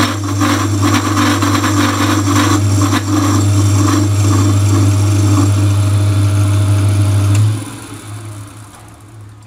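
Homemade metal lathe running on its electric drive motor, a loud steady hum with irregular clatter over the first three seconds. It is switched off about seven and a half seconds in and winds down.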